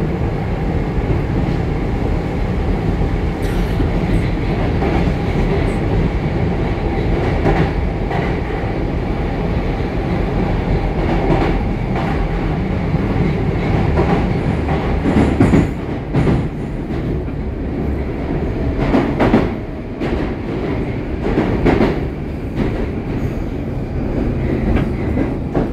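Moscow metro train running in the tunnel, heard from inside the passenger car: a steady rumble of wheels on the rails, with clacks and knocks over the track joints in the second half.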